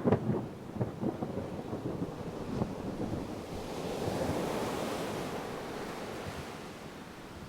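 Distant thunder rumbling and crackling, loudest at the start and dying away over the first couple of seconds, then an ocean wave surging in on the shore, swelling around the middle and easing back.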